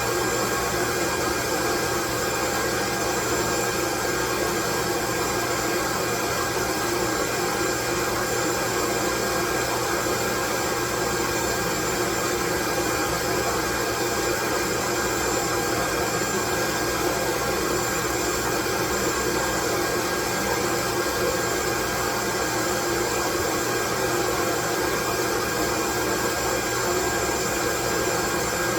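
Steady white noise: an even, unchanging hiss spread across the whole range, with a few faint steady tones running through it.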